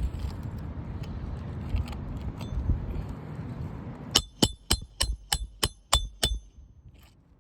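Hammer driving a roofing nail into an asphalt shingle: about eight quick strikes with a metallic ring, roughly three a second, starting about halfway through. Before the strikes there is a low rumbling noise.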